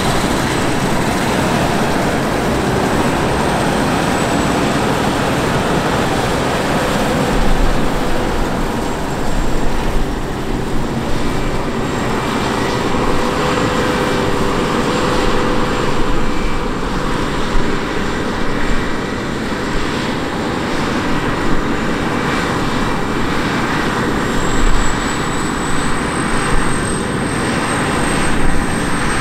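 Steady engine noise from a running vehicle, with a faint high whine that rises near the end.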